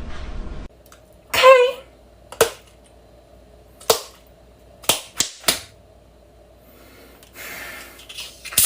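A brief high squeal, then five sharp pops at uneven intervals.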